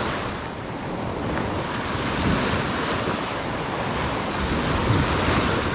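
Small Gulf of Mexico waves breaking and washing up a sandy beach, a steady surf hiss that swells a few times, with wind on the microphone.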